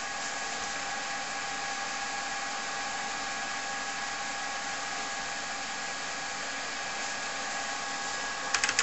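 Steady whir of a TRS-80 Model 4 computer with its floppy drive spinning as it boots from disk. Keyboard keys click near the end.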